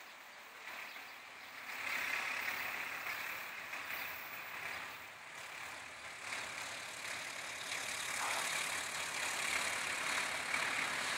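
Distant heavy engines running: a steady hum that swells about two seconds in and then holds.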